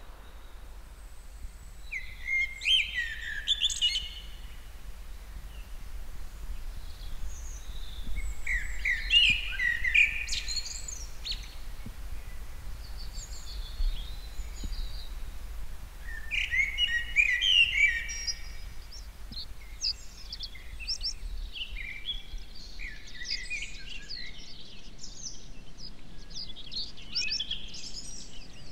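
Songbird singing in phrases of about two seconds with pauses between; from about twenty seconds in, a denser run of high twittering carries on, over a faint low background rumble.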